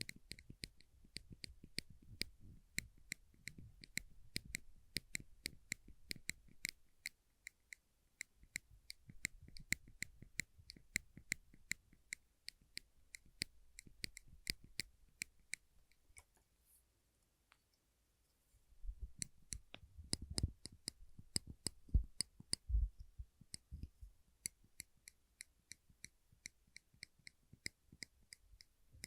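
Small silver metal clips pressed and released over and over close to the microphone, a steady run of sharp clicks about three a second. The clicks pause briefly past the middle, then a few dull handling thumps come before the clicking resumes.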